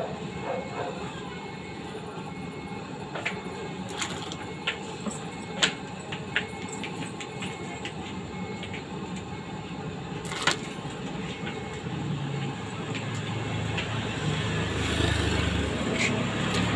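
Street ambience at a food stall: a steady background din with occasional sharp clinks. A vehicle engine rumbles in about twelve seconds in and grows steadily louder toward the end.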